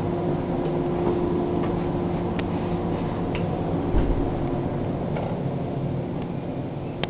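Steady rumble and hum inside a 583-series electric sleeper train car, with a few faint clicks and a dull thump about four seconds in.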